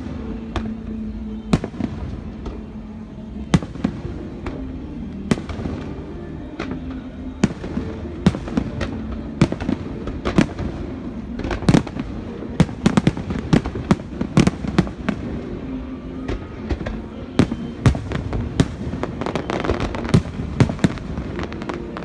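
Aerial fireworks shells bursting: a string of sharp bangs at irregular intervals, coming thicker and faster from about halfway through.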